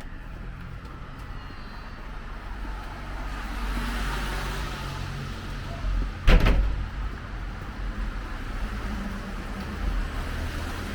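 A car passing on the street, its tyre and engine noise swelling and fading over a few seconds over a low traffic rumble, with a sudden thump a little past the middle.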